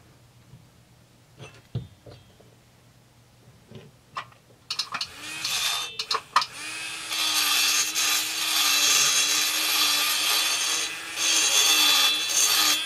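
A dental lab micromotor handpiece fitted with a carbide burr grinds the intake port of a two-stroke chainsaw cylinder at high RPM. A few light clicks come first. The grinding starts about five seconds in with a steady whine and a hissing cut, and it eases off briefly twice.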